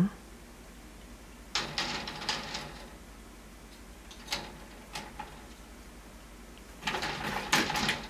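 Wood-framed wire pet gate rattling and knocking as cats paw at each other through it: a rattly burst about a second and a half in, two single knocks in the middle, and another burst near the end.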